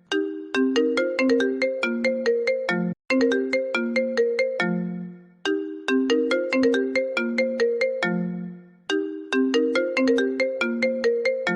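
iPhone ringtone playing on a loop: a short melody of struck, decaying notes repeating about every three seconds, each phrase ending on a lower held note.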